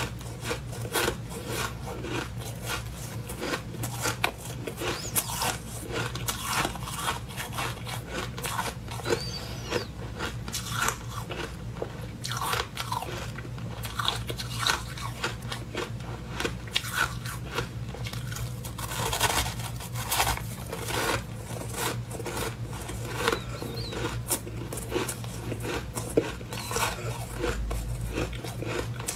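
Freezer frost being bitten and chewed: a continuous run of crisp crunching and crackling as the packed ice crystals break in the mouth.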